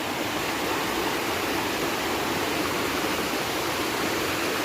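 Rushing water of a forest waterfall and stream, a steady even rush without a break.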